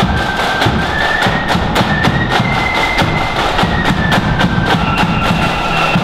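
Marching flute band playing a tune: flutes carry a single high melody over rapid snare drum strokes and a bass drum.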